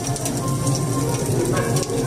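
Crackling and popping of an artificial fireplace's reproduced log-fire sound effect, many small sharp pops over a steady background. Background music and a low murmur of voices run underneath it.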